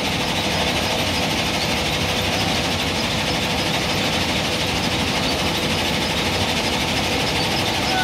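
Diesel engine of a JCB backhoe loader running steadily under load while the backhoe arm digs sand, with a faint steady hum over it.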